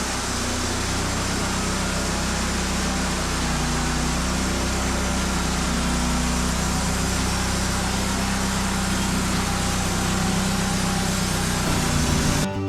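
Engine running steadily under load, with a wide hiss over it and its pitch shifting slightly a few times.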